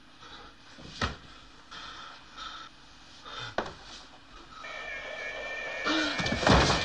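Drama sound effects: a sharp knock about a second in and another a few seconds later, with short bursts between them. Then a wavering high tone sets in and holds, and a loud crash comes near the end.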